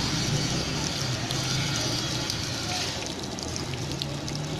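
Chicken pakora batter deep-frying in a large karahi of hot oil: a steady hiss of sizzling that eases about three seconds in, leaving lighter crackles, over a low steady hum.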